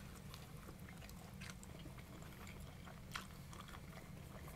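People chewing pizza, with a few faint, short mouth clicks over a steady low background hum.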